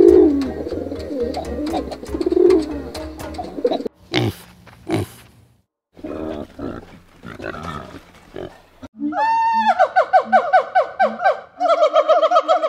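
Feral pigeons cooing, then a common warthog grunting in short bursts after two sharp noises about four seconds in. From about nine seconds a gibbon calls: one long rising hoot, then a rapid series of trilled whoops.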